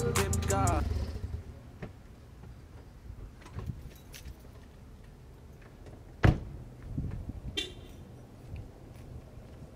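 Background music fades out in the first second. Then come faint handling clicks and one sharp car-door slam about six seconds in, from the Volkswagen Jetta sedan's driver door being shut. A brief buzzy chirp follows about a second later.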